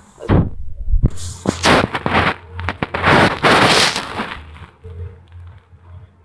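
Handling noise as the camera is moved about: a string of knocks and rubbing on the microphone, densest through the middle and dying down near the end.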